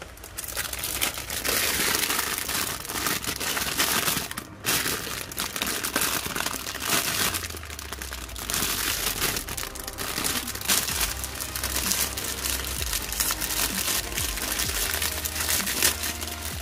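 Clear plastic bag crinkling and rustling as hands handle and pinch it, with the kit's plastic parts sprues inside. The crackle runs on almost unbroken, with a short pause about four and a half seconds in.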